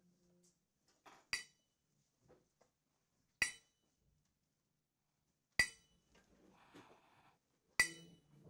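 Tuning fork struck against a wooden block four times, about every two seconds. Each strike is a sharp metallic clink with a brief high ringing that fades quickly.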